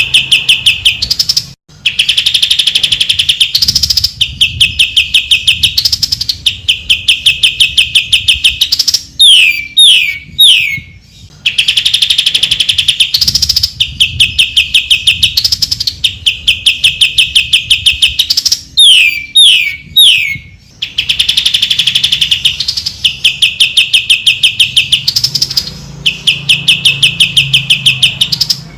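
Green leafbird (cucak ijo) singing: long runs of rapid, evenly repeated chattering notes, broken twice by a short series of three or four descending whistles.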